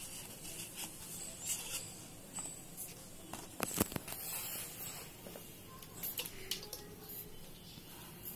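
Faint rustling and scattered light clicks of a paper strip being wound tightly on a slotted quilling tool, with a brief louder crackle about four seconds in.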